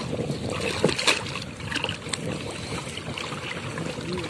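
Shallow muddy water sloshing and splashing as people wade through it and grope in the mud with their hands, with a few sharper splashes about a second in and again near two seconds.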